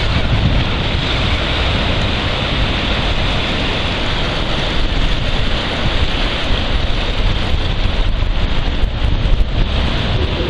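Wind buffeting the microphone with a heavy, steady rumble, over small waves washing onto a shell-grit shore.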